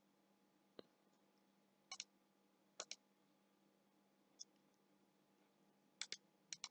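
Faint computer mouse clicks, several in quick pairs, over near silence with a faint steady low hum.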